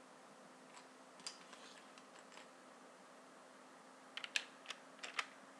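Light plastic clicks of LEGO bricks on a LEGO SPAS-12 model being worked by hand: a few scattered faint clicks, then a quick run of sharper clicks about four to five seconds in.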